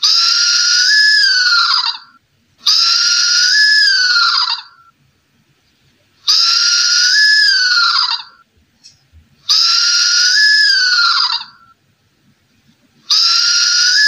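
An owl's high-pitched, drawn-out call, repeated five times at fairly even spacing. Each call lasts about two seconds and rises slightly in pitch before dropping at the end, and the calls sound identical to one another.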